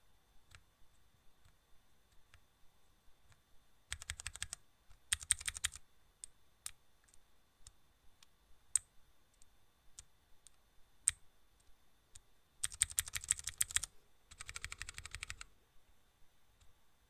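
Rapid clicking in four short runs of about a second each, with single sharp clicks scattered between.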